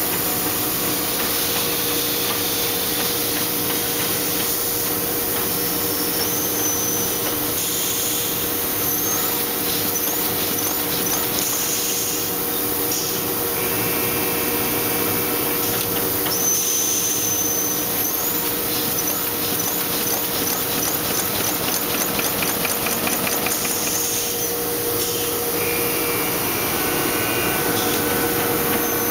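Envelope folding and gluing machine running: a steady mechanical clatter with a constant hum, fast fine ticking from the cycling mechanism, and short high-pitched whines now and then.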